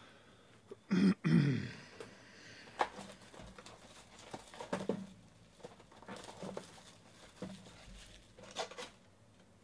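Plastic shrink wrap being torn off a cardboard trading-card hobby box and crinkling in the hands, in scattered rustling bursts. About a second in, a person gives a short cough-like noise, the loudest sound here.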